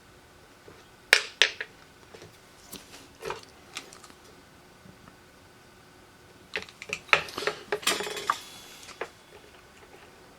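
Small metal tools clicking and clinking against hard surfaces on a repair bench, in two bursts of quick sharp clicks: a few about a second in, then a busier flurry in the second half.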